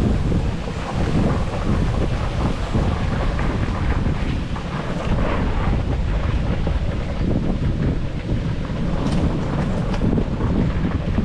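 Wind blowing across the microphone: a loud, steady rush heaviest in the low end.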